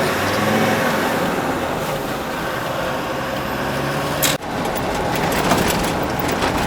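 Old Land Rover driving, its engine and road noise running steadily, with a brief break in the sound about four seconds in.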